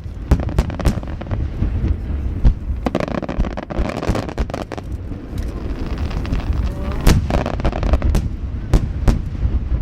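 A rapid barrage of large aerial firework shells (shakudama, about 30 cm) bursting: many sharp booms and cracks overlapping one another over a continuous low rumble, with no break.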